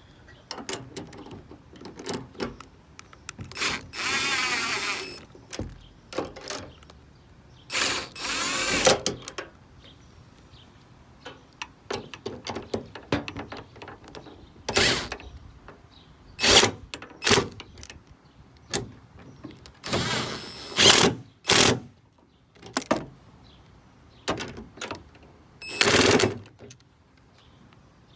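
Fender bolts being run in and tightened with a tool: several bursts of about a second of tool noise, separated by short clicks and metal knocks.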